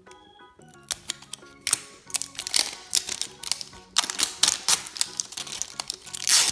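Plastic toy packaging being handled and unwrapped: rapid crinkling and crackling with sharp clicks, in dense spells from about a second in and from about four seconds in, loudest near the end, over background music.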